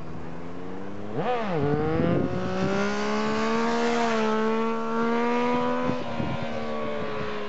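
An engine revs up and back down briefly, then runs at a steady pitch for several seconds before easing off and fading near the end.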